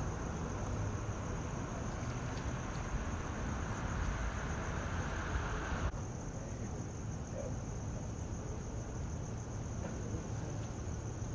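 Steady outdoor street ambience: a low rumble of idling vehicles under a continuous high-pitched drone. The noise drops abruptly about six seconds in.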